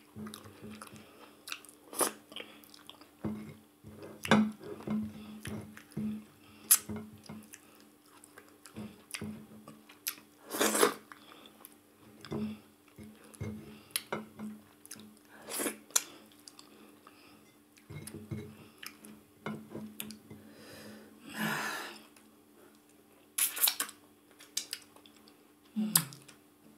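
Close-miked mouth sounds of someone eating ogbono soup and fufu: wet chewing with irregular lip smacks and clicks, and one longer, drawn-out mouth sound about two-thirds of the way through. A faint steady hum sits underneath.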